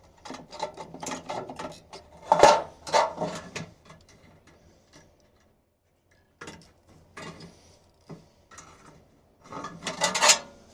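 Thin aluminum sheet being trimmed with hand snips: four short bouts of crisp clicking and crunching cuts, the loudest about two and a half seconds in and near the end.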